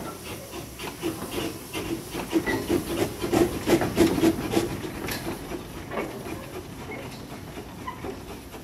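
Two small Bagnall 0-4-0 saddle tank steam locomotives working coupled together, their exhaust beats coming quickly, about four a second, over a steady steam hiss. The beats grow loudest around the middle and then fade as the engines move away.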